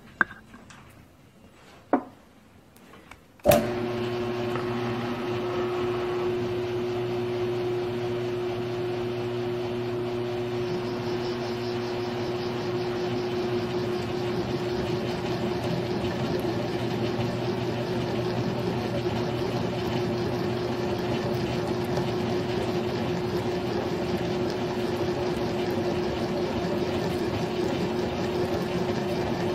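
A couple of light clicks, then about three and a half seconds in the Grizzly G1007 mill-drill switches on with a sharp click and runs with a steady hum, its adjustable boring head spinning in a bore in a 6061 aluminum block. The sound grows a little brighter about ten seconds in.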